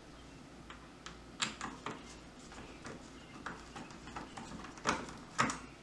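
Phillips screwdriver turning a screw out of a latch piece in the head track of a sliding patio door: irregular small clicks and scrapes of the tool on the screw and metal. The two sharpest clicks come about a second before the end.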